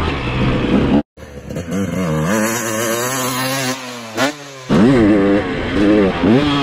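Motocross bike engine revving up and down as it is ridden round a dirt track, heard up close. About a second in the sound cuts out briefly and gives way to a quieter, more distant bike engine whose pitch falls, with one quick rev, before the close engine comes back revving shortly before the end.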